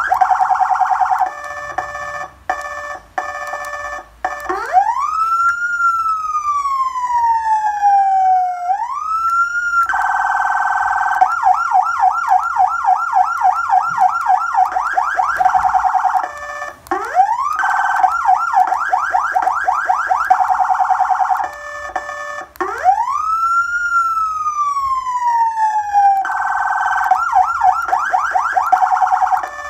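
Electronic police-style siren from a siren amplifier cycling through its tones. A harsh steady buzzing tone gives way to fast repeated chirps, then a slow wail that rises and falls, and the sequence repeats about every ten seconds.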